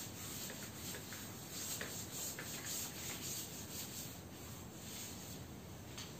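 Chalkboard being erased by hand: a series of quiet rubbing strokes of the eraser across the board.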